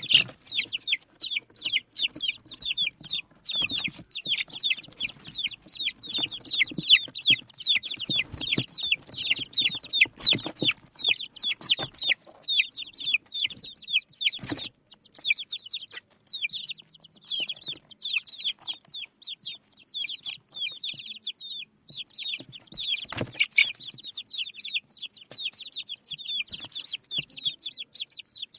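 A brood of baby chicks peeping continuously, many short high downward-sliding chirps overlapping several times a second, with a few sharp knocks now and then.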